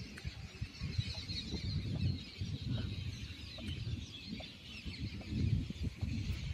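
Wind gusting on the microphone in an open field, with many small birds chirping in the background.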